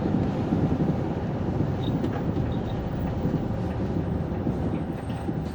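City bus interior: engine and road noise as the bus runs on, easing off and growing a little quieter toward the end as it slows for a requested stop, with a few faint rattles.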